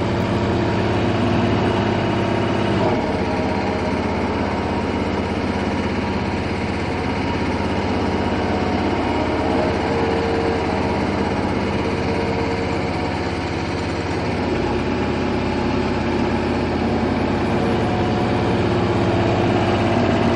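Hydraulic motor running on a test bench with a load on its shaft: a steady machine hum and whine, its tones shifting about three seconds in and twice more later. It turns, but works weakly under the load.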